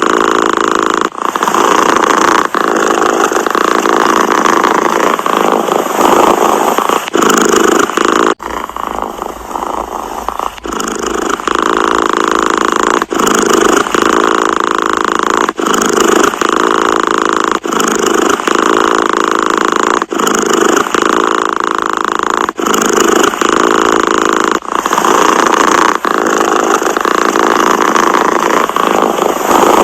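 Domestic cat purring loudly, the purr breaking off briefly between breaths about every two seconds. It is softer for a few seconds about a third of the way in.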